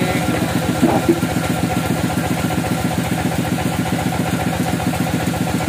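Sawmill bandsaw engine running steadily at idle, a fast, even chugging. A short shout about a second in.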